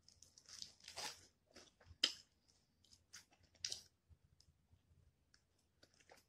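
Faint close-up chewing and biting of a fried chicken wing: irregular crunches and mouth clicks, the loudest about two seconds in.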